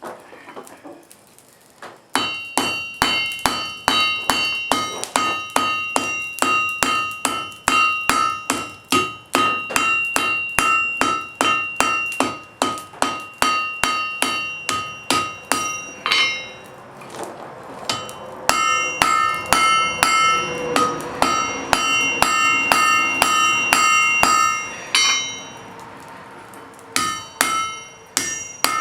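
Blacksmith's hammer striking hot wrought iron on an anvil in rapid, steady blows, each with a ringing tone. The hammering stops for about two seconds midway, then resumes, and ends with a few scattered strikes.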